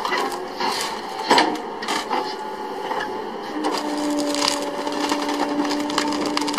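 Excavator-mounted stump grapple crushing a tree stump: the wood cracks and splinters in repeated sharp snaps over the running machine. A steady whine sets in a little past halfway as the jaws bear down.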